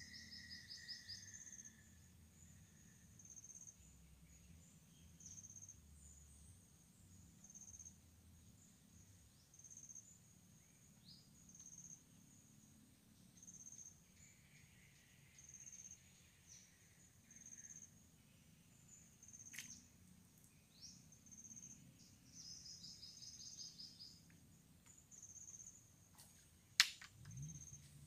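Quiet riverbank ambience: faint high-pitched chirps and short trills from insects and birds, repeating every second or two. A single sharp click near the end.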